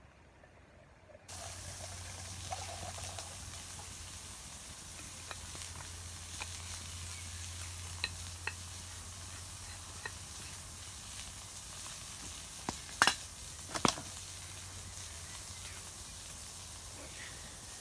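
Campfire burning under cooking food: a steady sizzling hiss that starts abruptly just over a second in, with scattered small crackles and two sharp pops about thirteen and fourteen seconds in.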